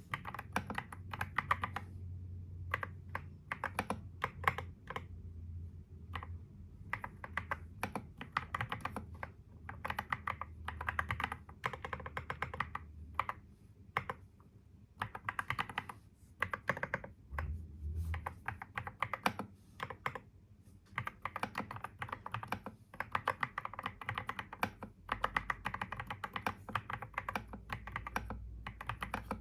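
Computer keyboard being typed on: quick runs of key clicks in bursts, broken every few seconds by brief pauses.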